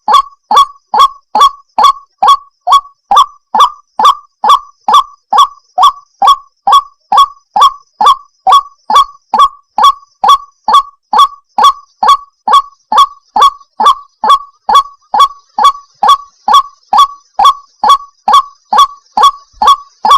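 Female white-breasted waterhen calling over and over in a steady, even series of short upward-sliding notes, a little over two a second, as played from a bird-lure recording.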